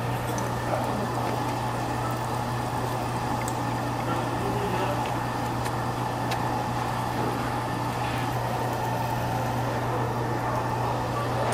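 Pork sizzling on a yeontan coal-briquette tabletop grill over a steady low hum, with a few faint clicks.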